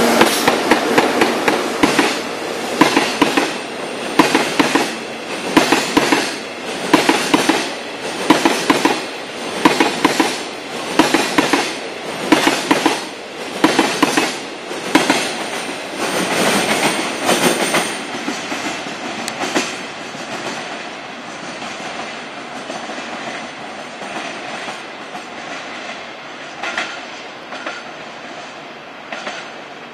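Freight train passing close by, its wagon wheels clattering over rail joints in a steady rhythm of about one cluster of clacks a second. The clatter fades about twenty seconds in as the last wagons go by, leaving a fainter rumble as the train draws away.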